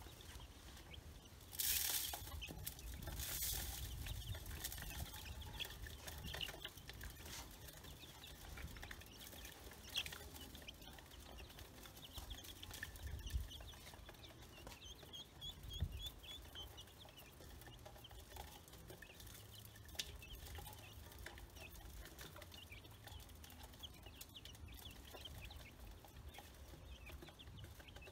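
Baby chicks and ducklings peeping softly in many short, high chirps while feeding from a metal bowl. A rustle about two seconds in and a few sharp clicks break in.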